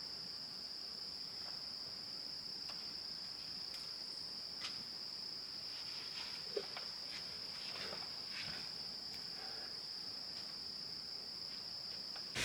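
Insects in a forest chorus, a steady, unbroken high-pitched trill, with a few faint ticks here and there.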